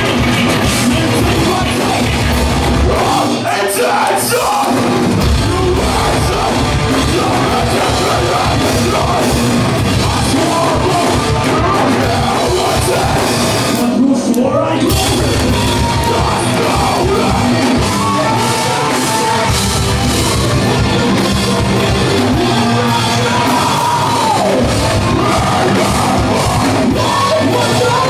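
Live heavy rock band playing loud: distorted electric guitars, bass and drum kit, with a singer's vocals over them.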